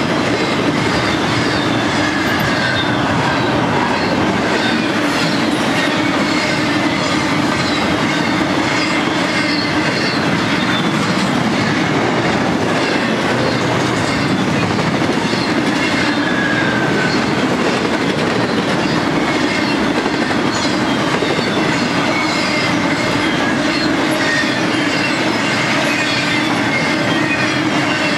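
Freight train cars, double-stack container cars and then empty well cars, rolling steadily past on the rails: a continuous rumble of steel wheels with a rhythmic clickety-clack. Thin, high wheel squeals falling in pitch come and go over it.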